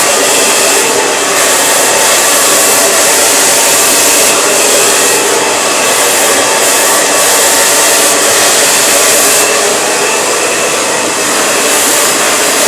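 Handheld blow dryer running steadily on high, its airflow directed down a section of long hair over a round brush, the loud rush of air shifting slightly in hiss as the nozzle moves along the hair.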